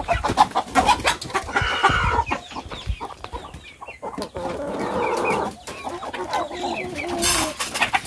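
Free-range chickens clucking and calling as they crowd in for feed, with many short clicks and a brief rustle near the end.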